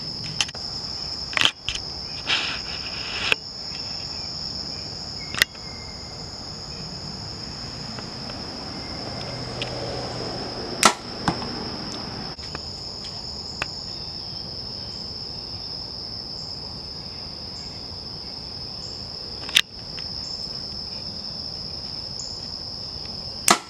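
Compound bow shots: a sharp snap of the string on release, about five times spaced well apart, over a steady high chirring of crickets.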